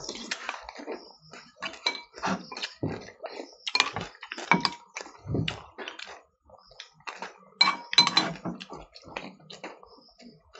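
Metal spoons clinking and scraping irregularly against glass bowls during fast eating, some clinks ringing briefly.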